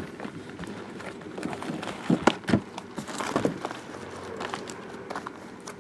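Shrink-wrapped cardboard boxes being shifted and restacked by hand: a few short knocks, the loudest about two to three and a half seconds in, with light crinkling of the plastic wrap.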